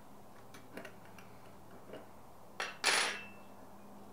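Small metal clicks of pliers and a wrench working a 10 mm nut on a grinder's drive-gear stem. About three seconds in comes one louder metal clatter as the wrench is set down on the table.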